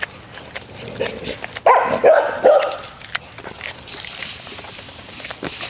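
Dog barking: a quick run of about three barks about two seconds in, after a fainter one near the first second.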